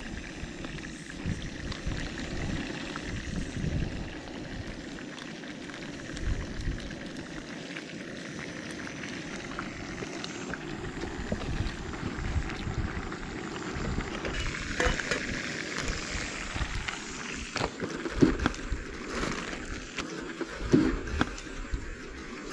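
Bacon-wrapped trout frying in a pan on a camp stove, sizzling steadily, with a few clicks and knocks mixed in.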